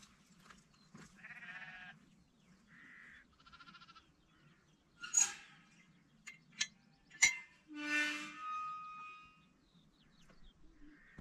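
A series of short animal calls, some with a wavering pitch, with a few sharp clicks between them; the longest call comes about eight seconds in.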